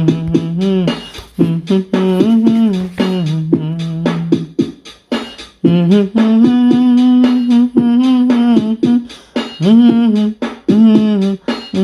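Background music: a held, gliding melody, possibly vocal or hummed, over a fast clicking beat.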